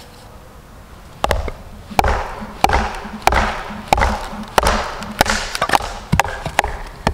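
Hatchet chopping into a short log on a wooden stump chopping block, with the log stuck on the blade knocked down onto the block to split it: a run of about a dozen sharp wooden knocks, roughly two a second, starting about a second in.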